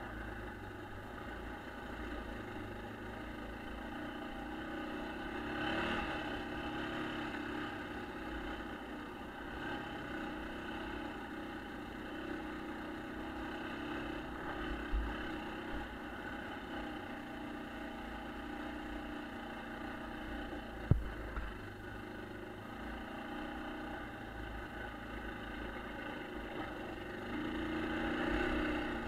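1996 Yamaha Kodiak ATV's single-cylinder four-stroke engine running steadily on a trail ride, rising about six seconds in and again near the end as it works harder. There is a knock about halfway and a sharper, louder knock about two-thirds of the way through.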